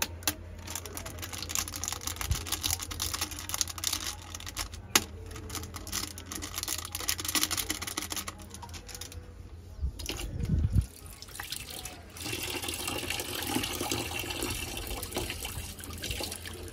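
Medicine sachet rustling and being tapped as powder is shaken into a plastic bucket of water. About twelve seconds in, a tap starts running, its stream splashing steadily into the bucket.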